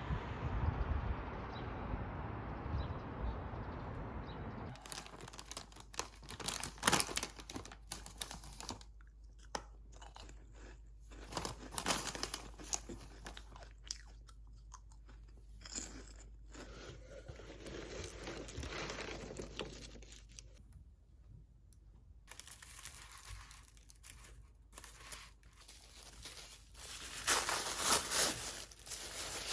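A steady low rushing noise for the first few seconds, then packaging being handled up close: crinkling, crunching and tearing in irregular bursts with short pauses between.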